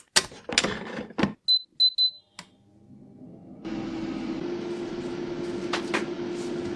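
A few clicks and knocks, then three short high electronic beeps, then an electric appliance starting up about halfway through and running with a steady hum.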